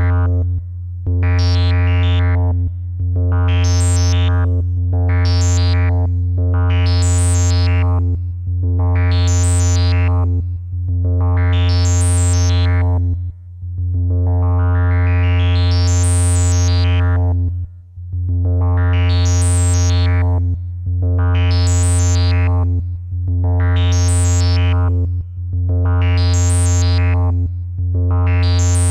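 A steady, low synthesizer tone passing through a breadboarded transistor ladder low-pass filter, the Moog-style design. The filter cutoff sweeps up and back down about every two seconds, brightening and then dulling the tone, with one longer, slower sweep in the middle. The pitch stays the same throughout.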